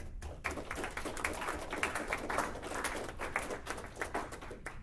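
A small audience applauding: dense, irregular clapping that begins just after the start and dies away just before the end.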